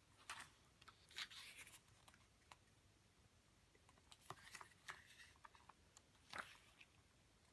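Faint rustling and light ticks of paper as photobook pages are handled and turned, in a few short bursts with quiet gaps between.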